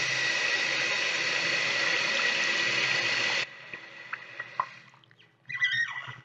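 Bathroom sink tap running steadily, shut off abruptly about three and a half seconds in. A few faint drips follow, then a brief pitched, squeaky sound near the end.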